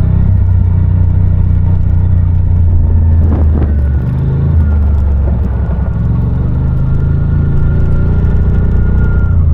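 Side-by-side UTV engine running steadily under way, a loud low rumble. A faint steady high whine joins about halfway through.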